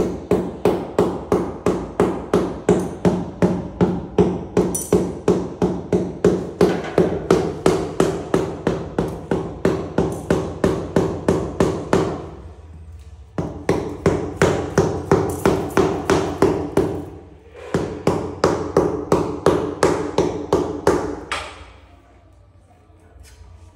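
Rapid, regular hammer blows, about three a second, each with a ringing tone, in three runs broken by short pauses; the hammering stops near the end.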